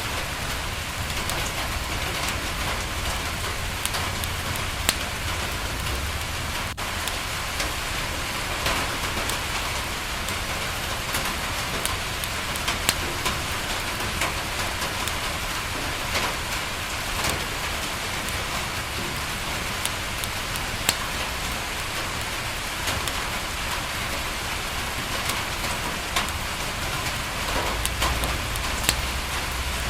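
Steady rain falling on a window, with the occasional sharp pop and crackle of a wood fire.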